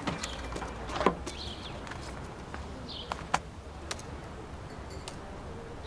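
Occasional short bird chirps over a low steady background, with a few sharp clicks scattered through, the loudest about a second in and about three seconds in.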